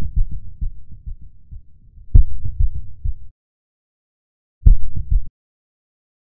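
Deep, low thuds repeating quickly, about four or five a second, in a run that stops after about three seconds, followed by a short burst of the same thuds about a second and a half later.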